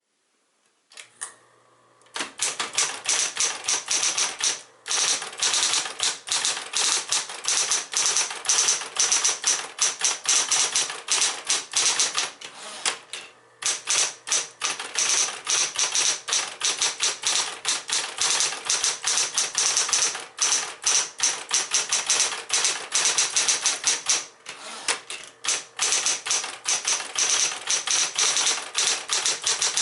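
Smith-Corona Corona Seventy electric portable typewriter: its motor starts humming about a second in. From about two seconds in comes fast, continuous typing, the motor-driven typebars striking in a dense clatter, with short pauses near five and thirteen seconds.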